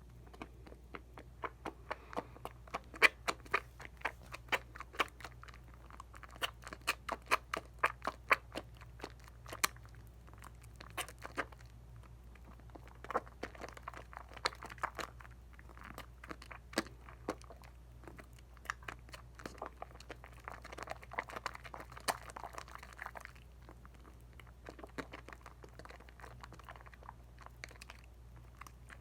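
Soap lather being worked from a bar of Dial coconut soap: wet, squishy foam with many small sharp crackles and pops in uneven flurries, thinning out near the end.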